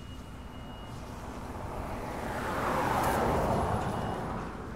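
A vehicle passing by: its noise swells to a peak about three seconds in and then fades, over a steady low outdoor rumble.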